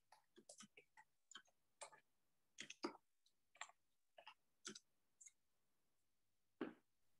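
Near silence broken by faint, irregular clicks and taps, about a dozen over several seconds, with a louder one near the end.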